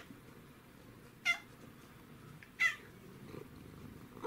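A domestic cat giving three short meows about 1.3 seconds apart, each quickly falling in pitch, directed at something high up that it is watching.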